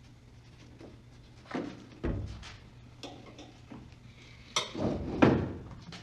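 A run of irregular knocks and clunks, as of car parts and tools being handled, over a low steady hum. The loudest clunks come in a cluster around five seconds in.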